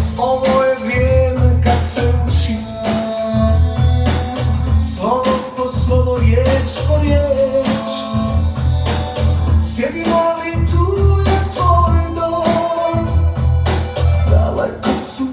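A song played back through a Denon POA-1500 power amplifier for a sound test: singing over a steady, heavy bass beat with organ.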